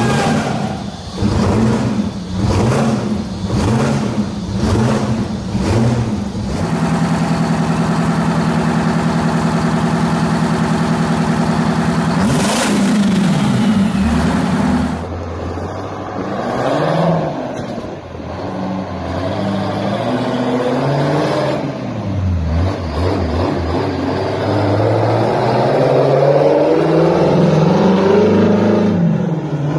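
Detroit Diesel V16 two-stroke diesel engine being revved several times, then held at a steady high speed for about eight seconds, then revved up and down again.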